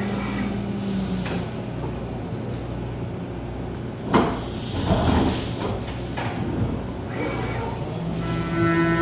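CNC vertical mill (Haas VF-2SS) changing tools: a falling whine as the spindle winds down, then a sharp clunk about four seconds in followed by about a second of hiss as the tool is swapped. Near the end comes a rising whine as the spindle spins back up.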